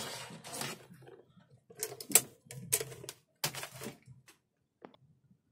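Sharp clicks and knocks of tools and small objects being handled and set down, several in the first four seconds and a couple of fainter ones after.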